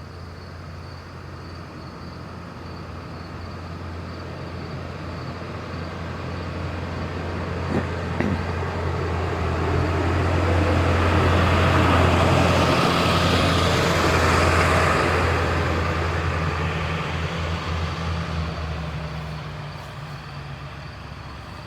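A truck driving past: its engine hum and tyre noise grow louder, peak about halfway through, then fade as it moves away.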